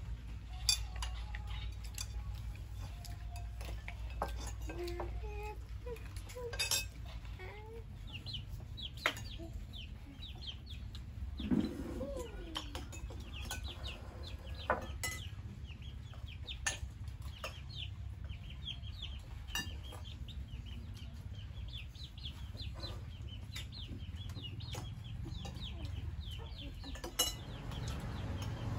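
Spoons and dishes clinking now and then during a meal, short sharp clicks scattered throughout. Behind them, birds chirp in quick high calls, most of them in the second half.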